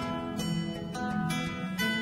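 Background music: acoustic guitar playing a run of plucked notes.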